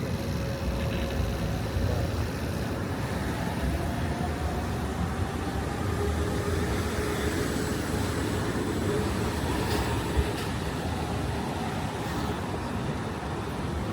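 Steady city street traffic noise: cars running by, a continuous low rumble without a break.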